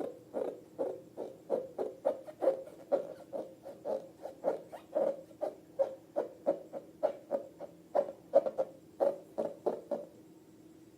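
Rubber balloon squeaking in quick, regular strokes, about three a second, stopping about ten seconds in.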